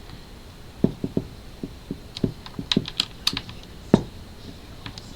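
Computer keys being pressed in an irregular run of about a dozen clicks, the loudest about four seconds in.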